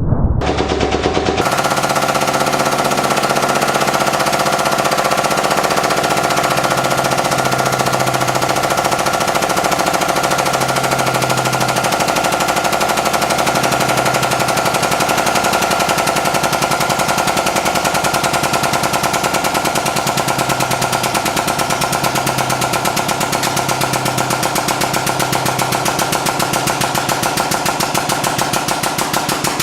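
Electric hydraulic press pump running under load as the ram bears down on stacked CO2 cartridges: a rapid, even chatter over a steady hum that fills out about a second in.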